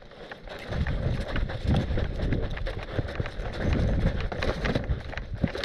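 A person running with the camera on their body: irregular footfalls, gear knocking and rattling, and wind buffeting the microphone.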